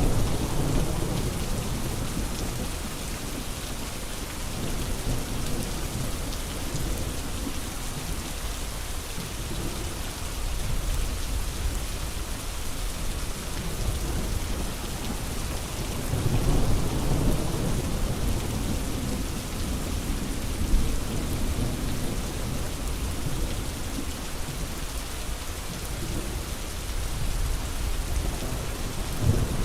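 Steady rain hiss. Low rolls of thunder swell and fade near the start, again about halfway through, and once more at the end.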